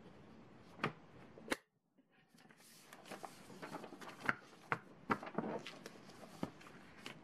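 Sheets of paper rustling and sliding as they are handled and put into a ring binder, with several light clicks and taps from the binder and pages.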